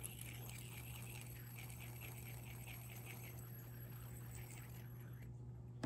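Tungsten Moonlight fidget spinner with tungsten buttons spinning on its bearing: a steady low hum with a faint, rapid rattle, which the owner puts down to something inside the bearing.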